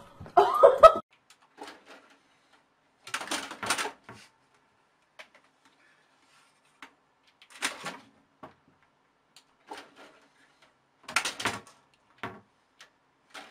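A short, loud pitched cry about half a second in, then three bursts of scratching and rustling roughly four seconds apart, from a cat clawing its way up a cloth curtain.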